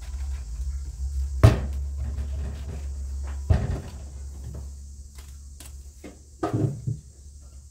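Eggplants dropped into a metal pot in a kitchen sink, landing with three sharp knocks, the loudest about a second and a half in, over a low steady hum.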